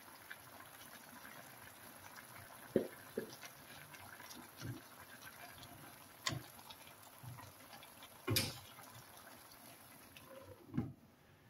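Vegetables simmering in a frying pan with a low steady sizzle, broken by about six sharp knocks and taps of utensils against the pan. Near the end a glass lid is set on the pan with a clack.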